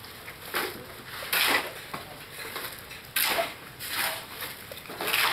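Shovels scraping and scooping through cement mix and gravel on a hard slab, with a rough scrape every second or so.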